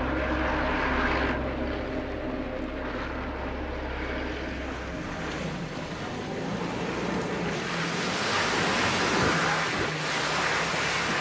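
A vehicle engine runs steadily, then off-road van tyres splash and churn through muddy floodwater. The water noise builds in the second half.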